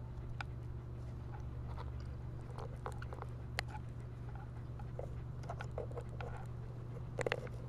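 Small clicks and soft rustles from a dog's collar and metal leash clip as the dog moves right against the camera, over a steady low hum. A quick run of clicks comes near the end.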